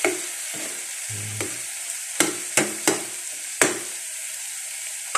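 Tomatoes, onion and garlic sizzling in a frying pan as a metal ladle stirs them, with several sharp clinks of the ladle against the pan, most of them between about two and four seconds in.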